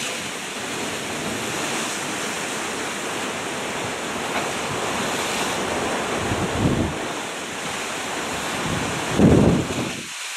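Steady rush of sea surf on a rocky volcanic shore, mixed with wind buffeting the microphone; two louder low rumbles swell up about six and a half and nine seconds in.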